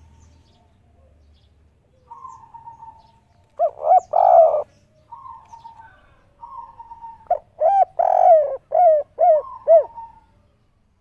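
Spotted dove (tekukur), a 'kuk 3' singer, cooing: a short cluster of two or three loud coos about three and a half seconds in, then a longer run of about six quick coos near the end. Softer, slightly falling notes come in the gaps between.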